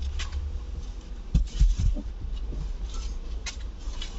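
A few light knocks and clicks of small parts being handled, spread out over a low rumble.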